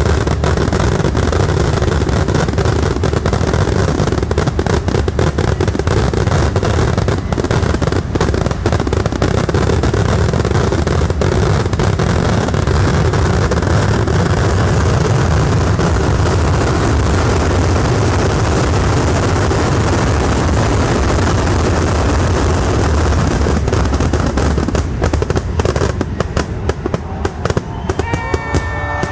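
Festival fireworks barrage: hundreds of firecracker and shell blasts in rapid succession, merging into one continuous rumble with cracks on top. Over the last few seconds the barrage thins into separate, widely spaced cracks.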